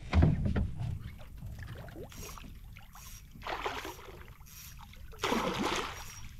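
Water splashing and swishing beside a small boat in separate bursts about a second and a half apart, with a louder one at the start.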